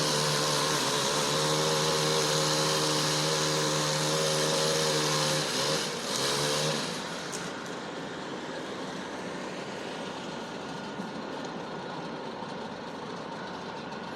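Chainsaw at full throttle cutting small limbs for about five seconds, then easing off and revving again for under a second before dropping away, leaving a lower steady background noise.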